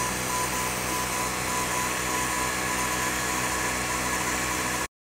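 Creality Falcon 2 22-watt diode laser engraver running an engraving job: a steady hiss and hum from its air assist and cooling fans, with a faint whine that comes and goes as the head moves. The sound cuts off suddenly near the end.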